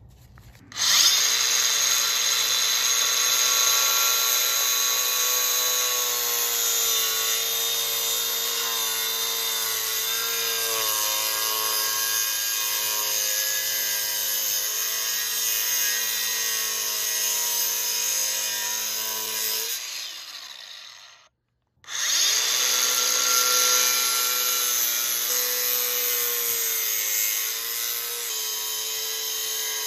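Cordless DeWalt 20V XR 4.5-inch angle grinder with a Diablo masonry blade starting up and cutting a groove into a masonry block, its whine wavering in pitch as the blade bites. About twenty seconds in it winds down and stops, then starts again a second later and keeps cutting.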